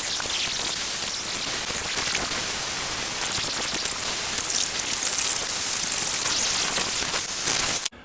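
Husqvarna 455 Rancher chainsaw running under load through a log in a chainsaw mill, heard as a loud, steady, harsh noise that stops abruptly near the end.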